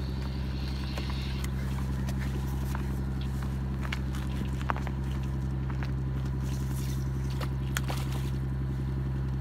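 A steady low engine drone, with splashes and a few sharp clicks from a hooked black sea bream thrashing at the surface as it is brought to the landing net.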